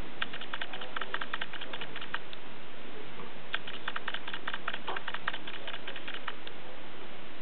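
Two quick runs of light, sharp clicks, about ten a second, each lasting two to three seconds, over a steady hiss.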